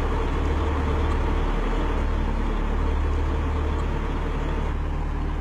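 Engine and road noise of a moving vehicle heard from inside its cab: a steady low rumble with an even hiss over it.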